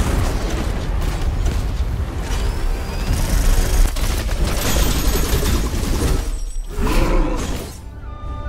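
Action animation soundtrack: a sudden blast right at the start, then dense crashing sound effects over music. It drops out briefly about seven seconds in.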